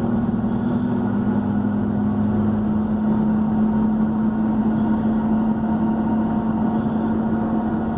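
Car engine and road noise heard from inside the moving car: a steady drone with a lower hum that drops away about three seconds in.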